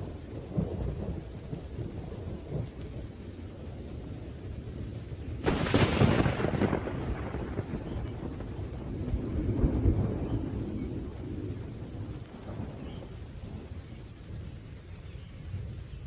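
Thunderstorm: low rolling thunder rumbling throughout over a steady hiss of rain. A sharp thunderclap breaks out about five and a half seconds in and rolls away over a couple of seconds, and a second, softer rumble swells around ten seconds in.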